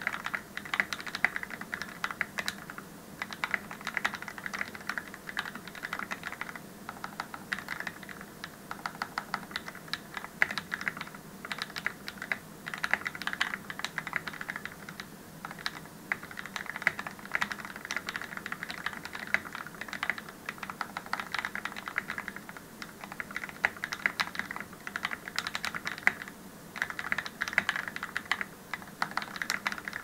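Fully tuned KeyCool KC84 mechanical keyboard with Akko CS Matcha Green linear switches and PBT doubleshot keycaps, typed on fast and continuously: a dense run of keystrokes with a few short pauses. The keystrokes are deep and thocky.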